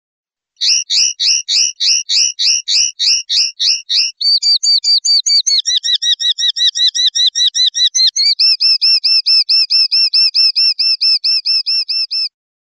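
Common linnet song: a run of repeated downslurred whistled notes, about four a second, then shifting to faster, lower trilled phrases a little past the midpoint and ending on a steady run of rapid repeated notes. It starts about half a second in and stops abruptly just before the end.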